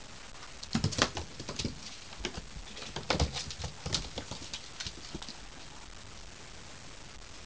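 Ocicat kitten paws pattering and scrabbling on a wooden floor and a carpeted cat condo, as a kitten leaps at the tower and climbs into it. Quick thumps and clicks come in two bursts, about a second in and again from about three to five seconds.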